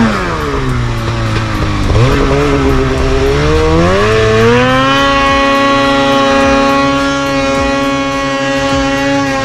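Snowmobile engine pulling through deep powder: the revs dip, climb over a few seconds, and then hold high and steady.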